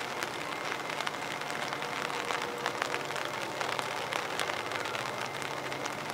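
Rain pattering steadily, with close drops ticking at irregular moments. A faint, low, steady hum sits underneath.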